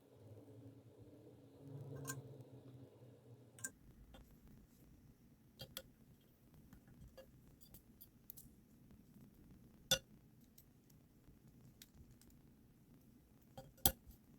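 Small metal and plastic parts of a fidget slider being handled during assembly: scattered light clicks and ticks, with two sharp clicks, one about ten seconds in and one near the end. A faint low hum stops abruptly about four seconds in.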